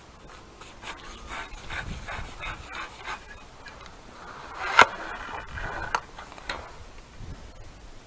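Irregular rubbing and rustling close to the microphone, with scattered soft clicks and one sharp click a little under five seconds in.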